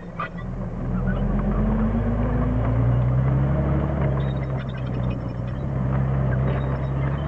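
Centurion tank's Rolls-Royce Meteor V12 petrol engine pulling the tank away along a gravel track, its engine note climbing slowly and steadily as the tank accelerates.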